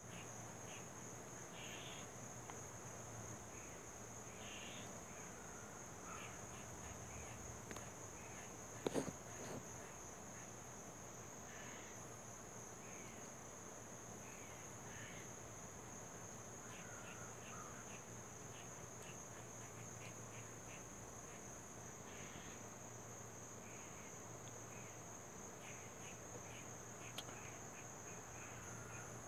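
Steady high-pitched chorus of crickets, with scattered short faint chirps over it and a single brief knock about nine seconds in.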